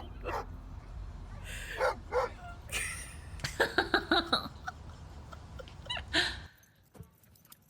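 A dog barking and yipping in short calls, with a quick run of several yips a little past the middle.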